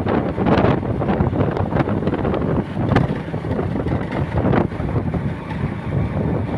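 Wind buffeting the microphone, with the low rumble of a moving vehicle underneath, swelling and easing in irregular gusts.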